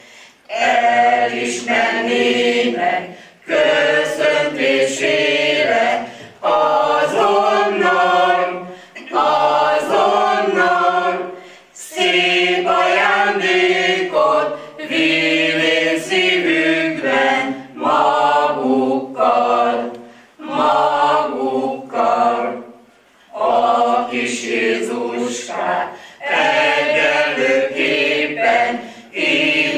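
Small mixed choir of older women and men singing a cappella, in short phrases separated by brief breaths.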